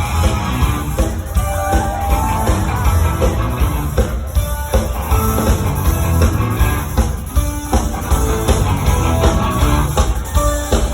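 Background music with a dense, steady low end and held melodic notes.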